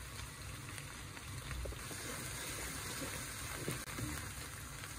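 Water boiling in a pan: a steady bubbling hiss with a few faint clicks.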